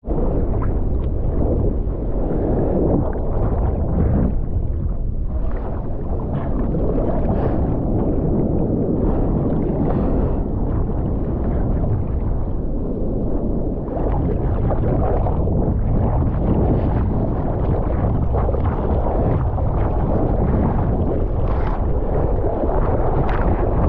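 Surf water rushing and splashing with wind buffeting the microphone, heard through a GoPro. Continuous and loud, rising and falling in uneven surges.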